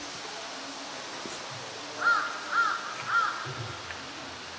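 A crow cawing three times, about half a second apart, each call rising and then falling in pitch.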